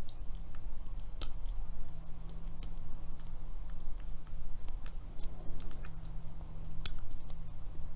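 Irregular small metallic clicks and scrapes of a lock pick and tension wrench working the pin stack inside a Master Lock Pro Series 7050 padlock's cylinder, over a steady low hum.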